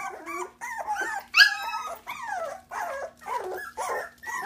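Three-week-old Goldendoodle puppies whining and squealing in a string of short, overlapping cries, with one louder, high-pitched squeal about a second and a half in.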